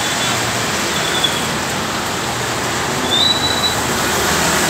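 Heavy rain falling in a steady downpour, with a couple of brief high squeaks, one about a second in and one about three seconds in.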